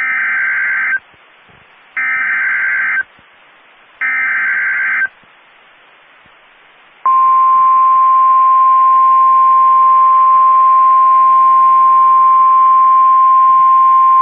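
Emergency Alert System alert on NOAA Weather Radio announcing a severe thunderstorm warning. Three one-second bursts of the SAME digital header, a raspy data screech, come two seconds apart with radio hiss between them. About two seconds after the last burst, the long, steady single-pitch warning alarm tone begins.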